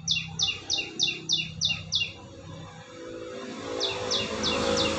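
Squirrel chirping: a quick run of about eight sharp, high, falling chirps at about three a second, then a pause and four more near the end, over a background noise that swells partway through.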